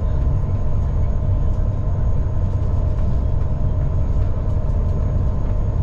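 Steady drone of a Brødrene Aa 40 m high-speed catamaran ferry cruising at about 32 knots, heard inside the passenger cabin: deep engine and hull rumble with a constant mid-range hum and faint rattling ticks.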